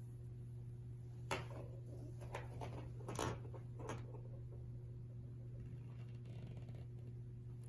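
A few light taps and knocks as a crawling baby's hands and a small rolling toy hit a hard floor, clustered in the first four seconds, over a steady low hum.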